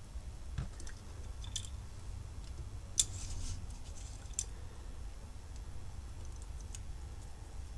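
A few scattered light clicks and taps from small tools and parts being handled while soldering a volume switch onto a circuit board, the sharpest about three seconds in, over a faint low hum.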